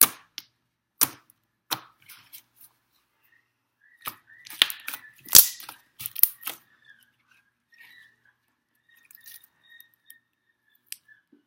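Homemade slime being squished and pressed by hand, giving a string of sharp pops and clicks, thickest between about four and six and a half seconds in.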